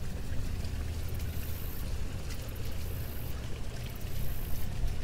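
Steady outdoor background noise: a low rumble with a faint hiss above it, and no distinct event.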